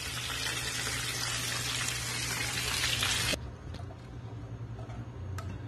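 Chicken wings deep-frying in hot coconut oil, a dense steady sizzle. It cuts off abruptly about three and a half seconds in, leaving a few faint light clicks.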